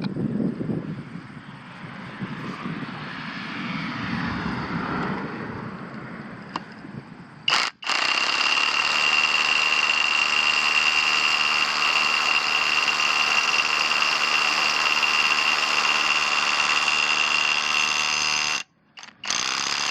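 Kobalt 24V cordless SDS Plus rotary hammer running in hammer drill mode with a 1/2-inch masonry bit against a concrete block, after some quieter noise. It starts about eight seconds in and runs steadily with a high whine for about ten seconds. It then stops and runs again briefly near the end: the bit had come loose in the chuck adapter, which was not tightened enough.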